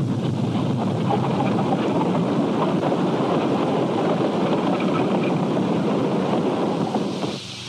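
Steady rushing noise with no clear pitch on an old, worn film soundtrack, dropping away near the end.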